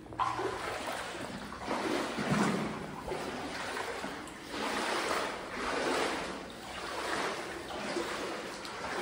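A person wading through water, sloshing and splashing with each stride about once a second.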